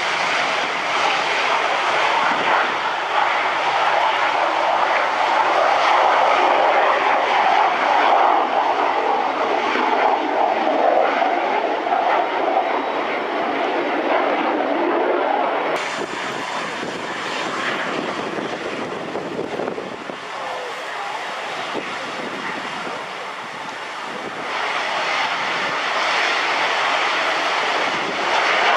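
Kawasaki T-4 jet trainers' twin turbofan engines at takeoff power: a loud, steady jet noise, loudest about 6 to 12 seconds in as one aircraft rolls and lifts off. After a cut about 16 seconds in the jet noise is quieter, then swells again near the end as another T-4 rolls down the runway.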